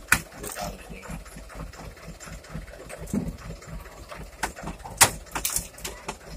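Mitsubishi Canter dump truck's diesel engine idling low, with scattered sharp clicks and knocks over it, the loudest just after the start and about five seconds in.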